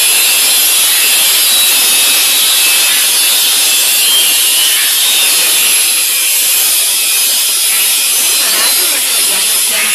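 A CNC plasma cutting torch working a steel plate, giving a loud, steady, unbroken hiss that is strongest in the high range.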